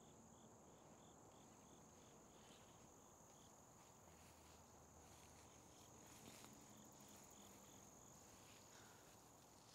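Faint crickets: a steady high trill with a regular chirping over it, about three chirps a second, that pauses now and then.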